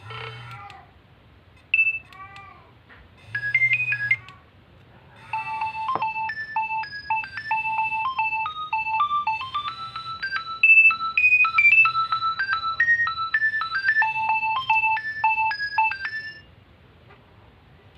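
Nokia 2300 mobile phone's speaker playing ringtones: first a few short snippets of tones and gliding chirps, then a polyphonic ringtone melody of quick beeping notes for about eleven seconds that stops near the end.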